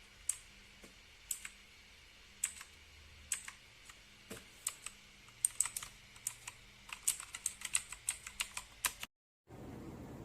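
Keys of a Royal Kludge RK918 mechanical keyboard being pressed: separate clicks about one a second at first, then faster typing for the last few seconds before it cuts off suddenly.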